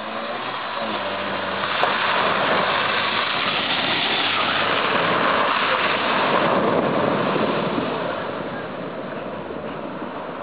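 Ford Fiesta 4x4's 1.3-litre engine pulling under load as the car drives past through muddy puddles, with water and mud splashing. The sound grows louder as the car approaches, stays loudest for several seconds as it passes, then fades as it drives away.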